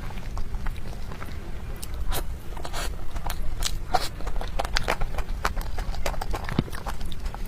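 Close-miked chewing and biting of mochi: irregular mouth clicks and smacks, several a second, over a low steady hum.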